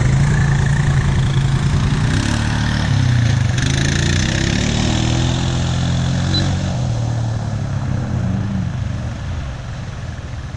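ATV engine running at low speed, its pitch rising and falling with the throttle, then easing off near the end.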